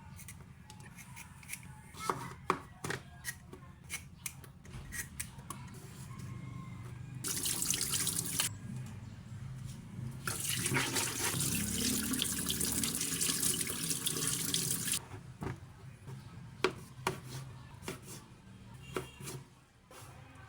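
Tap water running into a sink in two spells, a short one and then one of about five seconds, with light clicks and knocks of handling around it.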